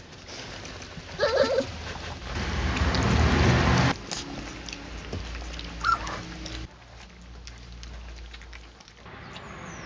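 Young puppies at a food bowl: a short high whine about a second in, among wet eating noises, with a louder rush of noise for a couple of seconds in the middle.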